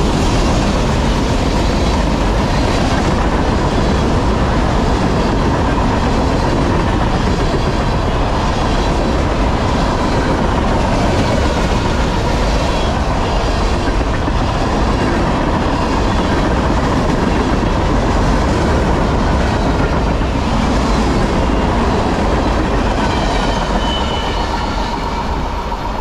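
Empty freight train of trash-container flatcars rolling past at speed: a steady loud rumble and clickety-clack of wheels over the rail joints, with a thin steady whine. It eases slightly near the end.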